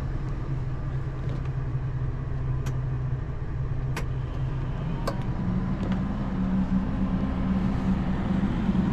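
Campervan engine idling steadily, with a few sharp clicks. About five and a half seconds in a second steady hum joins as a 12-volt computer cooling fan switches on with the DC-to-DC battery charger.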